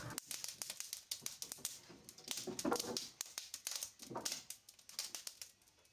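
Faint, irregular clicking and tapping, a quick scatter of small clicks with uneven gaps.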